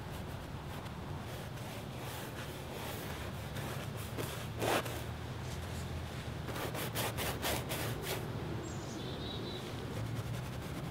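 Oil-paint brush scraping and dabbing on a large canvas in a series of short scratchy strokes, the loudest about halfway through and several more in quick succession after it, over a steady low background hum. A brief high bird chirp sounds near the end.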